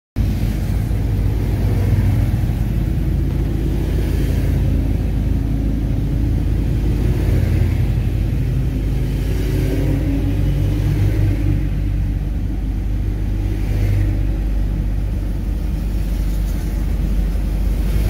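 Steady road and engine rumble of a moving vehicle in traffic, heard from the vehicle itself.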